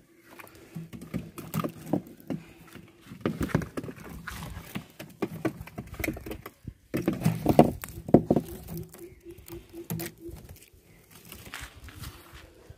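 Irregular rustling, scraping and knocks from hands handling the netting over an outdoor fish tank, busiest about seven to eight seconds in. A low hum comes and goes underneath.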